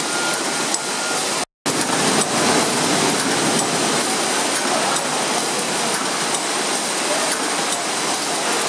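Steady hum and hiss of a spring onion packing line running, its conveyor and automatic bundling machine going, with faint regular clicks. The sound cuts out for a moment about a second and a half in.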